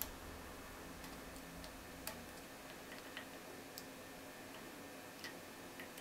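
Faint, irregular metallic clicks from a lock pick working the pins inside an SXE paracentric lock cylinder, under tension from a tension wrench; about ten clicks, unevenly spaced.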